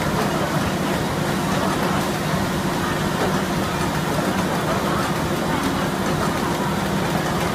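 Chicken-meat weight-sorting line running: a steady machine hum over constant mechanical noise, with faint scattered ticks.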